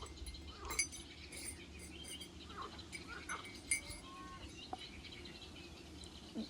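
Scattered faint animal calls: short chirps and small rising and falling calls over a quiet outdoor background, with a few sharp clicks.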